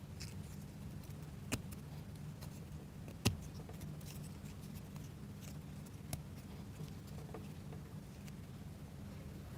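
Light clicks and scraping of plywood model-kit parts being handled and fitted together, with a few sharper clicks, the loudest about three seconds in, over a low steady hum.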